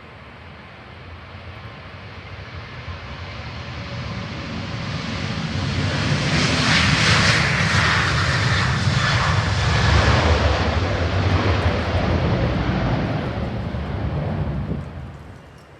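Jet airliner passing close by. Its engine noise builds steadily to a loud peak with a deep rumble underneath, then drops away sharply near the end.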